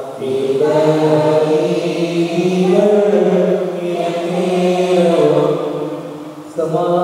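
A priest chanting a liturgical prayer in a man's voice, a slow melody of long held notes. It fades briefly near the end, then comes back strongly.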